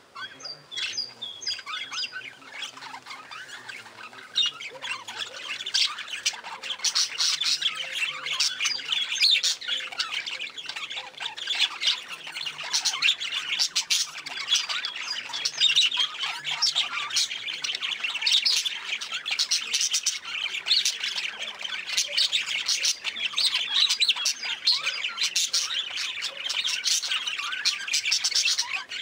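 A flock of budgerigars chattering: a dense mix of warbling, chirps and squawks, sparse at first and filling in after a few seconds into continuous chatter.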